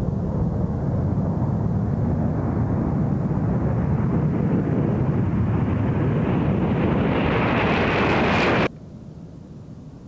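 Rockwell B-1B Lancer's four afterburning turbofan jet engines at takeoff power: a heavy, rumbling jet roar with a whine that slowly rises in pitch as the bomber rolls and lifts off. The roar cuts off suddenly about nine seconds in, leaving a much quieter background.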